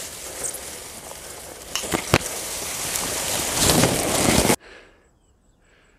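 Tall grass rustling and scraping against the camera microphone as it is pushed through the blades, with a few sharp cracks about two seconds in; the rustling grows louder and then cuts off suddenly at about four and a half seconds.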